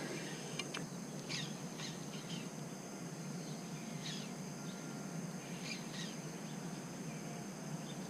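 Outdoor ambience: short bird chirps now and then, about five in all, over a steady high insect drone and a faint hiss.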